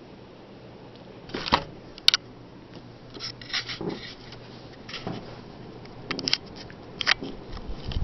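Seagull Lighting Main Street ceiling fan running with a faint steady hum, overlaid by irregular clicks and rustles from a handheld camera being moved closer.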